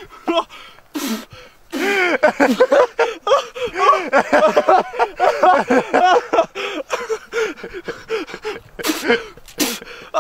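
People's voices: rapid, excited exclamations that the speech recogniser could not make out, broken by a few short, sharp breaths or gasps.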